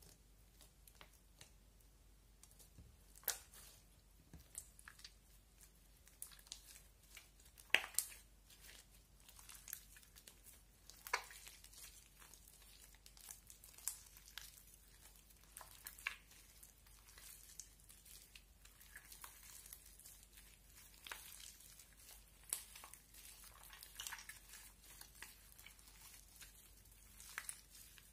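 Orange slime mixed with shaving cream being worked, giving soft, irregular crackles and small pops at an uneven pace, with a few louder pops about eight and eleven seconds in.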